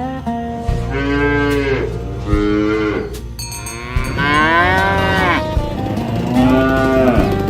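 Cattle mooing: four long moos one after another, each rising and then falling in pitch, the third the longest.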